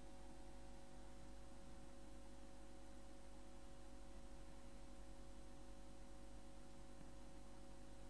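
Faint, steady electrical hum with several held tones over a low hiss: the noise floor of the narrator's recording setup, with no other sound.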